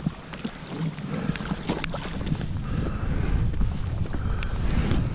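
Wind buffeting the microphone in a low, steady rumble, with scattered light clicks and knocks throughout.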